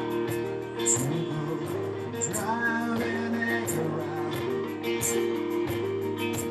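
Live music: a man singing a slow phrase in the middle, over guitar and sustained accompanying notes.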